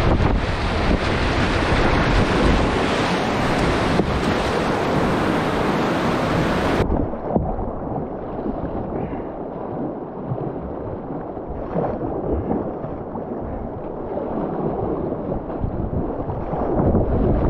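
River white water rushing and splashing around a kayak, close to the microphone. About seven seconds in it turns duller and a little quieter as the boat reaches calmer water, then grows louder again near the end.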